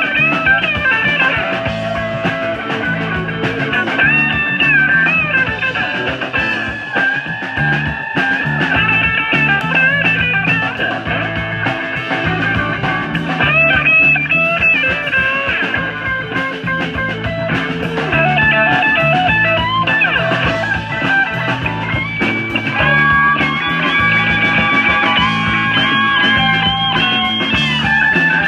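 Live rock band instrumental, with a lead guitar playing bending, gliding melodic lines over a steady bass line.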